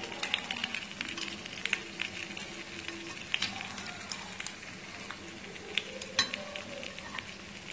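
Oil sizzling and crackling around sweet unniyappam dumplings frying in a paniyaram pan, with the clicks and taps of metal spoons scraping the pan cavities as the dumplings are turned over.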